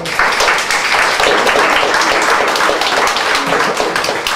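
Audience applauding: dense clapping from a crowd of many hands that breaks out at once and keeps up steadily.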